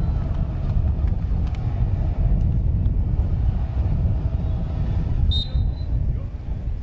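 Steady low rumble of open-air ambience, with a short, high referee's whistle about five seconds in, signalling the serve.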